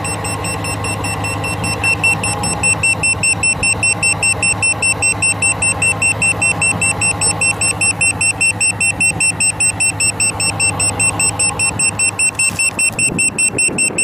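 Smart Sensor AS8700A carbon monoxide meter's alarm beeping in a fast, even, high-pitched series, set off by the high CO reading from the exhaust. A vehicle engine idles steadily underneath.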